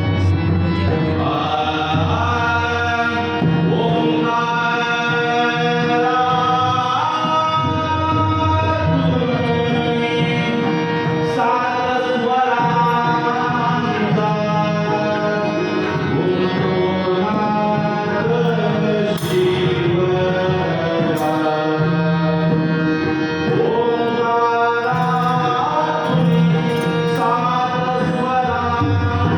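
Marathi devotional bhajan: a solo male voice sings a gajar refrain in long, bending melodic phrases over a sustained accompanying tone and hand-drum rhythm, with a few sharp percussive strikes.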